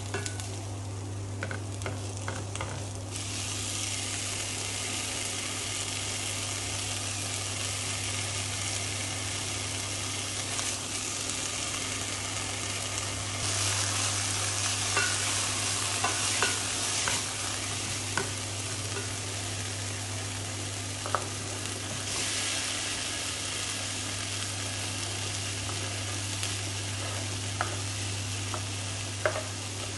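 Lemongrass, ginger and garlic frying in a stainless steel pot, the sizzle jumping up about three seconds in as wet, squeezed black fungus goes in, then stirred with a plastic ladle that clicks now and then against the pot. A steady low hum runs underneath. Near the end, diced potato and carrot clatter into the pot.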